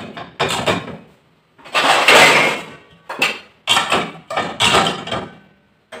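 Plates being set into a dishwasher's lower wire rack: about five clattering knocks of a white plate and a steel plate against the rack and the pans already loaded, the loudest about two seconds in.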